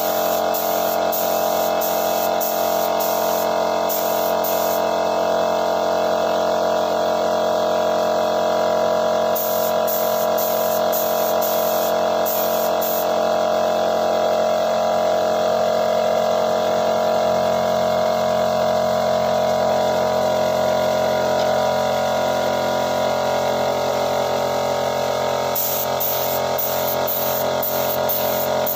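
Air compressor running with a steady hum while a compressed-air spray gun sprays lacquer paint, the spray hissing in short bursts at the start, again about a third of the way in, and near the end.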